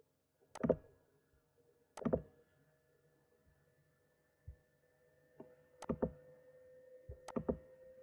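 Computer mouse clicks, about seven sharp separate clicks at irregular intervals, over a faint steady electrical hum that grows slightly louder about halfway through.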